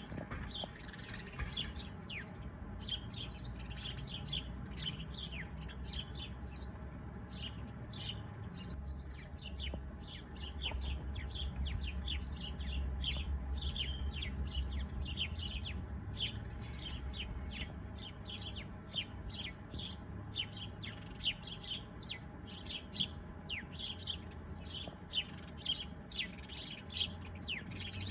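Songbirds chirping: many short, quick, high chirps in rapid runs, denser in the second half, over a low background rumble.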